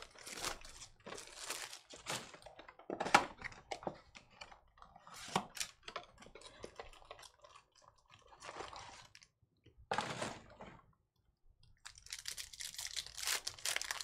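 Cardboard of a Topps Chrome Sapphire Edition trading-card box being torn open, then a foil card pack crinkling and tearing open over the last two seconds.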